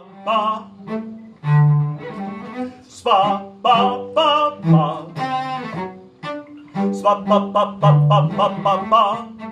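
A male operatic-style singer sings with a wide vibrato over a solo cello bowing sustained low notes. Near the end he sings the patter syllables "spa pa pa pa pa".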